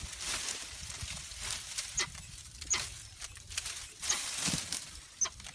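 Leaves and branches rustling and crackling as a tiger scrambles and hangs in a tree, with several short high-pitched chirps scattered through it.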